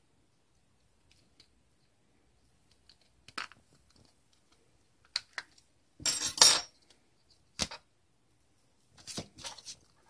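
Mitsubishi FAST smart key being taken apart by hand: scattered clicks and scrapes of small plastic and metal parts. The loudest clatter comes about six seconds in, and a cluster of clicks comes near the end.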